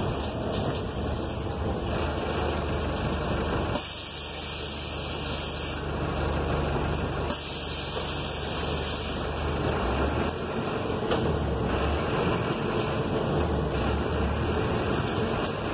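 City bus in motion on a wet street, heard inside the cabin: the engine runs with a steady low hum over road and tyre noise. Twice, about four and seven seconds in, a hiss lasts about two seconds.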